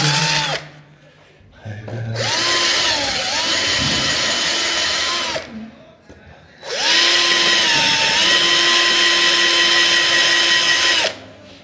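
Handheld electric power tool running in two long bursts, each starting with a rising whine, holding a steady pitch that sags briefly under load, then stopping. A shorter run is just ending at the very start.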